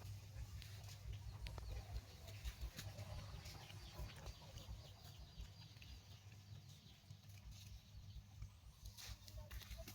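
Faint, short animal calls scattered over a steady low rumble.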